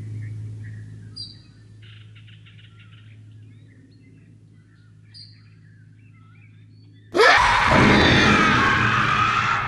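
Quiet forest ambience with a fading low hum and a few faint bird chirps, plus a quick rattling trill. About seven seconds in, a sudden loud rushing trailer sound effect with a deep rumble cuts in and carries on.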